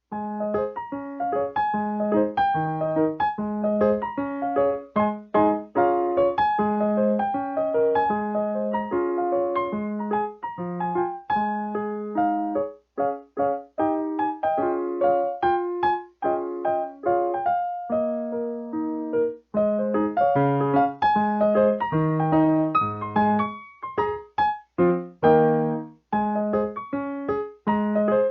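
Background music: solo piano playing a melody of separate notes.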